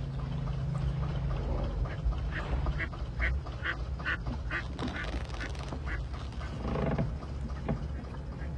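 Ducks quacking, a quick run of short calls, a few a second, over the low steady hum of a boat engine running at idle.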